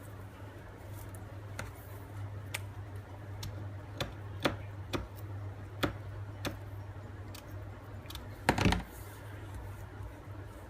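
Irregular light clicks and taps of hands working craft materials and tools, about one a second, over a steady low hum, with one louder knock near the end.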